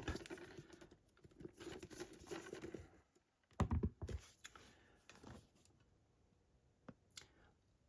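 Faint handling noises of a boxed collector's set being turned over in the hands: soft rubs and taps, a louder knock about three and a half seconds in, and two small clicks near the end.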